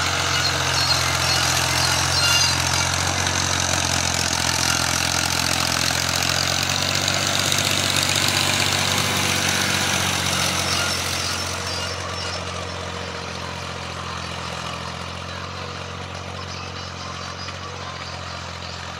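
Tractor engine running steadily as it pulls a plough through the field. It is loud as it passes close, then fades from about eleven seconds in as it moves away.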